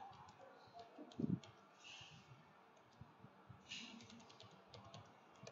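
Faint typing on a computer keyboard: scattered light keystroke clicks, with one soft low thump a little over a second in.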